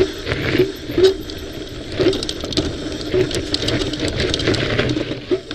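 A mountain bike rattling and clattering over a rough dirt and rock trail, with many quick clicks and knocks from the frame and chain, picked up by an action camera mounted on the bike.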